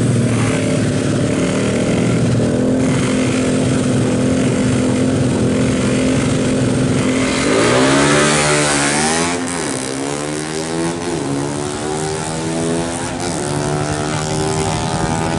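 Two small motorcycle engines held at steady revs on a drag strip start line. About seven and a half seconds in they launch, the pitch rising, dropping back at each upshift and rising again, as the bikes accelerate away down the strip.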